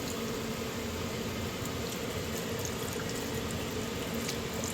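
Chicken pieces cooking in a pan of soy, sesame oil and teriyaki sauce: a steady bubbling hiss with a few faint pops.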